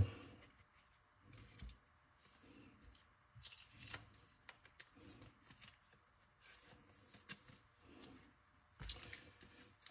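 Faint, scattered rustles and light clicks of Pokémon trading cards being flipped and slid through the hands.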